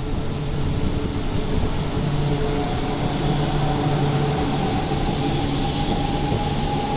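E4 series Max double-decker Shinkansen pulling out and picking up speed: a steady low rumble of the passing cars, with a motor whine that comes in about two and a half seconds in and rises slowly in pitch as the train accelerates.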